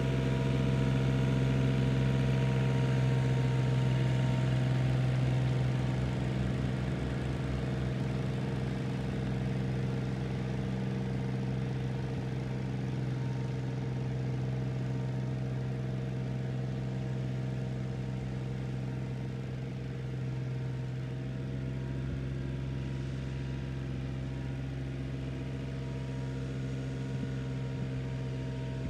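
John Deere 3300R compact tractor's diesel engine running steadily at constant revs while it drives the PTO sprayer across the green, a little louder in the first few seconds.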